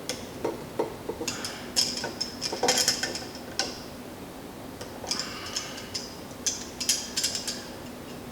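Light metallic clicks and clinks of hand tools and small steel parts being handled, in scattered clusters with a quieter stretch in the middle.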